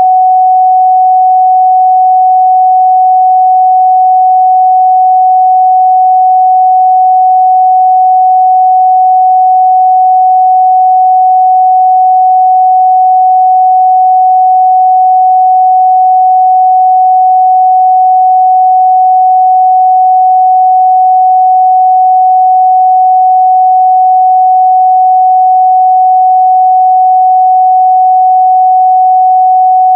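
A steady 744 Hz sine-wave test tone, a single pure pitch held constant and loud with no breaks.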